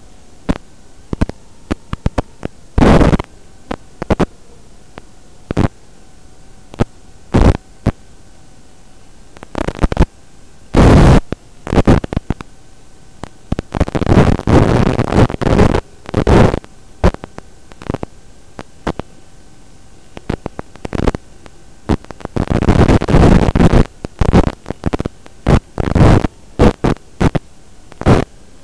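Steady static hiss from an analog FPV video downlink, broken by many loud bursts of static as the video signal from the racing quad breaks up. A faint wavering tone runs under the hiss.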